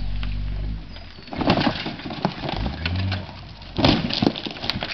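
Red hatchback car rolling over onto its roof as a rope pulls it: a low steady hum for the first second, then a series of crunching metal-and-glass impacts as the body hits the ground, the loudest about a second and a half in and again around four seconds in.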